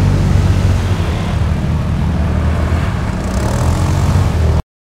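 Quad bike (ATV) engines running steadily under load while ploughing through deep water, with splashing. The sound cuts off suddenly near the end.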